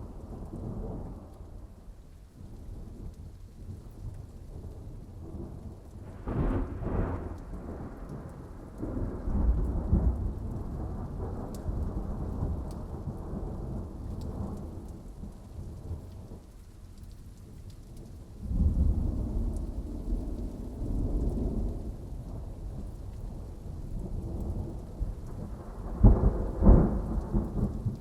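Thunderstorm: steady rain with rolling rumbles of thunder, swelling several times, and the sharpest, loudest claps near the end.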